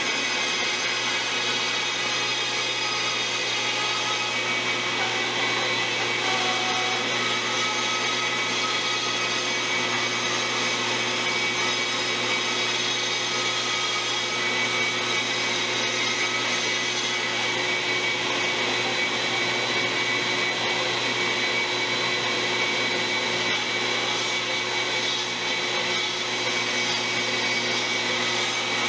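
King bandsaw running and cutting a Western red cedar paddle blank, a steady machine whine and hiss, with the dust-collection vacuum hooked to the saw running alongside.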